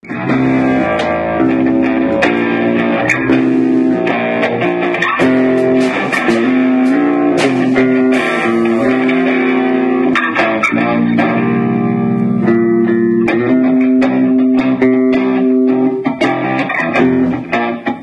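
A small band jamming live, led by an electric guitar playing changing chords and single-note lines. Sharp hits punctuate it throughout.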